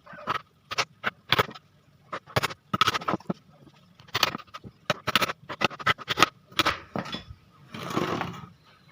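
A dozen or so irregular short knocks and scrapes on wood as the timber pieces of a fridge stand are worked by hand, ending with one longer rasping stroke near the end.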